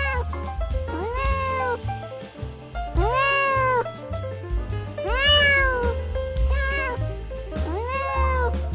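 Domestic cat meowing four times, each meow a long call rising then falling in pitch, over background music with a steady bass line.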